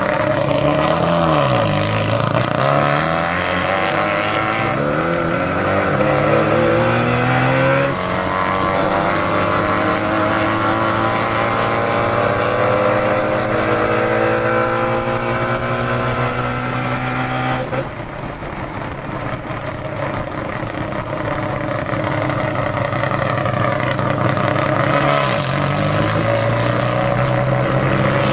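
Mazda 13B peripheral-port rotary engine pulling hard under load, its note climbing through the revs. There is a break in the rise about 8 seconds in as it shifts gear, then it climbs again until the sound drops off suddenly about 18 seconds in. Near the end the revs dip and rise once more.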